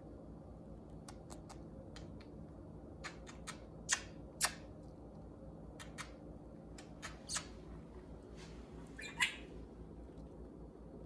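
Budgerigars giving scattered short, sharp chirps and squawks, a few louder ones around four seconds in and again about nine seconds in, over a low steady hum.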